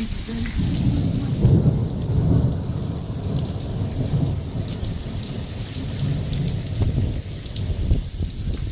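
Heavy rain in a thunderstorm, with a long rolling rumble of thunder that builds about half a second in and is loudest a second or two later, then keeps swelling and fading under the steady hiss of the rain.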